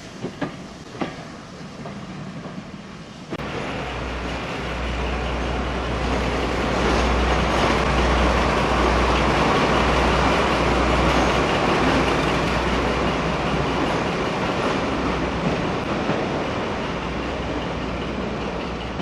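Railway carriage running along the track, with a few sharp wheel clicks over rail joints. About three seconds in, the running noise jumps suddenly much louder, with a steady low hum under it.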